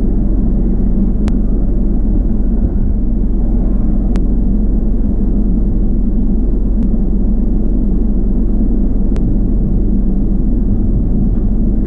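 Steady low rumble of the parked chase vehicle's engine idling, heard from inside the cab, with a few faint clicks.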